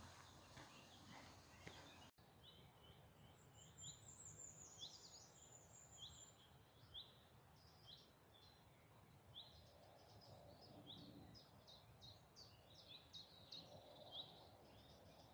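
Faint birdsong: small birds chirping in short repeated notes, with a quick high descending trill a few seconds in, over a soft outdoor background hiss. The sound breaks off briefly about two seconds in, where the ambience changes.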